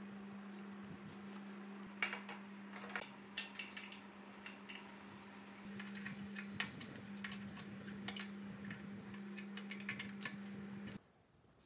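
Small clicks and taps of metal and plastic parts being handled and fitted on an air compressor: its pressure switch and belt guard. They come irregularly from about two seconds in, over a steady low hum that stops abruptly near the end.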